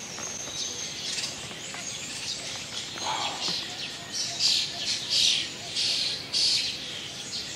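Wild birds chirping and singing, several high chirps and short phrases, louder and thicker in the second half, over a quiet outdoor background.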